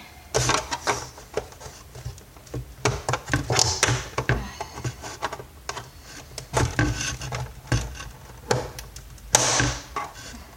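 Plastic housing of a vacuum cleaner being pried apart by hand: irregular clacks, knocks and scrapes of plastic parts under strain, with a louder scrape near the end.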